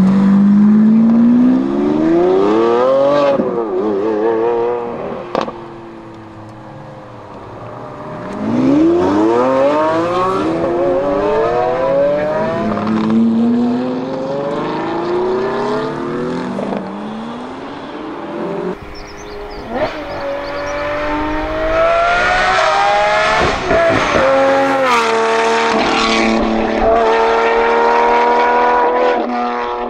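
Lamborghini V12 supercars accelerating hard one after another, the engine note climbing through the revs and dropping back at each quick upshift, with a few sharp cracks between pulls.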